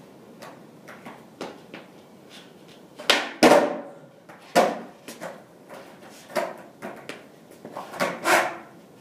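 Skateboard on concrete: wooden deck clacking and slapping down during ollie attempts, loudest in a pair of clacks about three seconds in, with more near the middle and a double clack near the end, and lighter knocks between.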